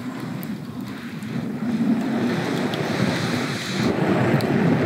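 Wind gusting over the microphone, building about two seconds in, with a few faint crackles from a small wood campfire.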